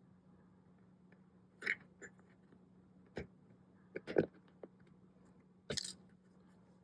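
A handful of small, sharp clicks and scrapes as an accordion reed plate is gripped and worked loose from its wax-softened reed block, over a faint steady hum.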